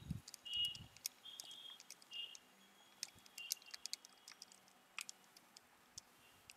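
Faint, irregular clicking of keys as a calculation is entered, with a few short high chirps in the background.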